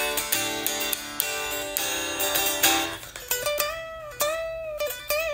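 Strandberg Boden NX Classic headless electric guitar strummed in chords for about three seconds, then played as single notes that are bent up and shaken with vibrato.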